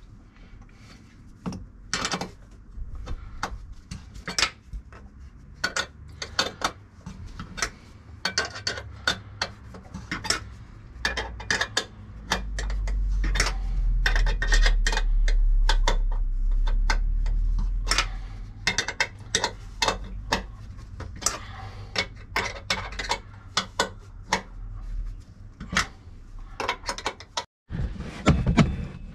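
Quick, irregular metallic clicks and clinks of a hand tool doing up the top mounting bolt of an air-suspension bellows, with a low rumble for several seconds in the middle.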